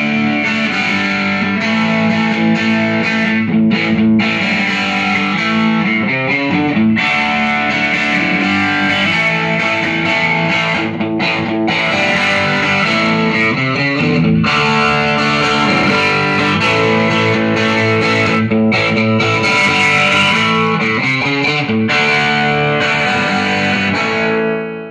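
MJT Telecaster-style electric guitar played through an amp with some distortion, a run of notes and chords that dies away near the end.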